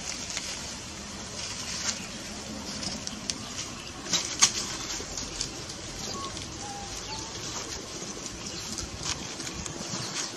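Dry leaf litter rustling and crackling, with a few sharp snaps, as macaques move over the leaves, over a steady outdoor background hiss. A couple of faint short squeaks about six to seven seconds in.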